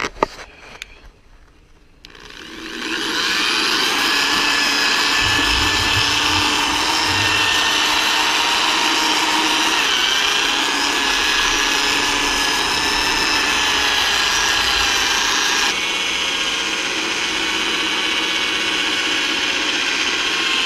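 Corded power drill spinning a dampened foam-backed sanding disc against a plastic headlight lens, wet-sanding it: a few clicks, then the drill starts about two seconds in and runs steadily with a high motor whine. The level dips slightly about three-quarters through.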